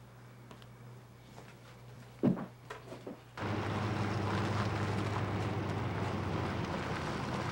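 Quiet room tone broken by a sudden loud thump about two seconds in and a few soft clicks, then a vehicle's engine and road noise heard from inside the cab, starting abruptly and running steadily.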